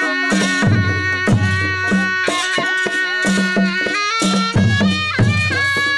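Nepali folk music: madal hand drums play a repeating pattern of deep strokes and higher slaps under a sustained, stepping melody.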